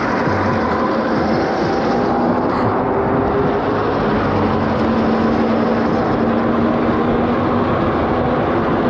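Steady road and wind noise from an electric bike riding at speed in traffic, with a steady whining tone over it.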